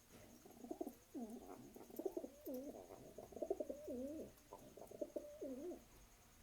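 Domestic pigeon cooing: a run of rolling coos, rising and falling in pitch with short breaks between them, lasting about five seconds.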